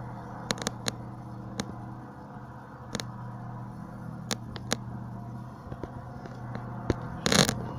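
Steady low droning hum with a few constant tones, an unexplained noise from the sky. Scattered sharp clicks come through it, and a short loud rustling burst near the end.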